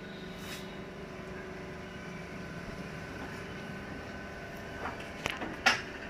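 Vertical hydraulic cardboard baler's electric motor and pump running with a steady hum, with a few sharp metallic knocks near the end, the last one the loudest.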